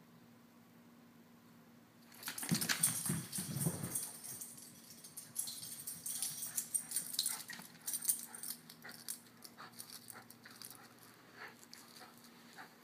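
Small curly-coated dog vocalising in a loud burst about two seconds in, then many scattered clicks and taps, thinning out toward the end, as it plays with a tennis ball.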